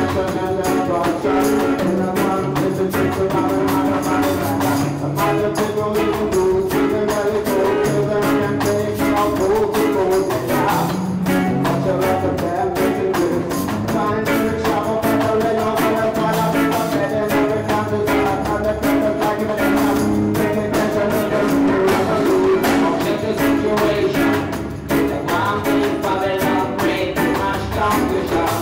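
A small band playing live with electric guitar, electric bass and a Tama drum kit, the drums keeping a steady beat.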